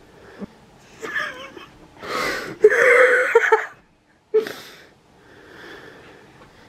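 Wheezing, breathless laughter in a few short bursts, loudest about three seconds in, with a sharp breath a little after four seconds.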